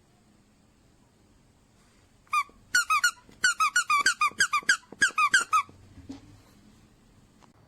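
Squeaky dog toy being squeezed in quick succession: a rapid run of about fifteen short, high squeaks over some three seconds, starting about two seconds in.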